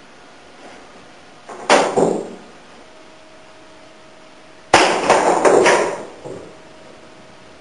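Billiard balls struck by a cue and clacking against each other and the cushions: a short run of clicks about two seconds in, then a louder cluster of sharp clacks nearly five seconds in lasting about a second and a half.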